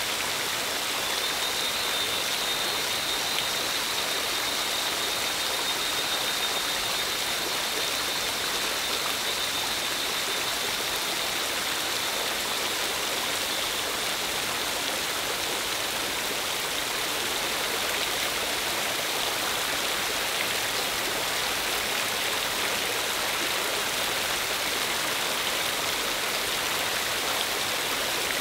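Steady shower of water falling like rain from a perforated bamboo pipe, many thin streams splashing onto a person and the rocky ground below.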